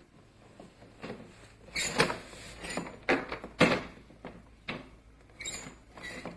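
Plastic ride-on toy excavator being worked: a run of irregular clunks, knocks and scrapes from its plastic scoop arm and body, the loudest about two seconds in and again a second and a half later.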